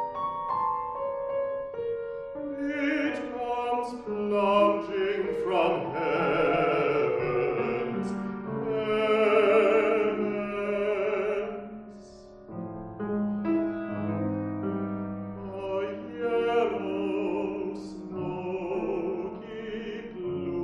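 A classical baritone singing an art song with wide vibrato, accompanied by piano.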